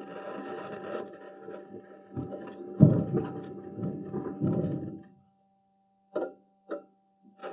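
Recording from a NASA Mars rover's microphone: irregular clanking and scraping over a steady hum, stopping about five seconds in, followed by two short knocks.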